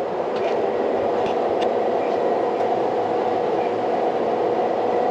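Steady running hum of a John Deere combine harvesting wheat, heard from inside the closed cab, with a few faint ticks.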